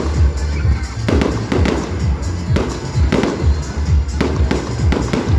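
Fireworks bursting in a rapid, irregular string of bangs, several a second, over music with a heavy bass.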